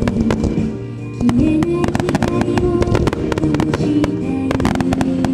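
Japanese star mine fireworks barrage: a rapid run of shells launching and bursting in sharp bangs and crackles, growing louder about a second in. Music plays throughout.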